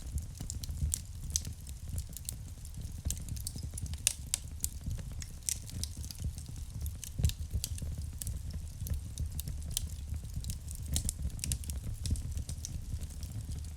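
Wood fire burning in a fireplace: a steady low rumble of flames with frequent irregular sharp crackles and pops from the burning logs.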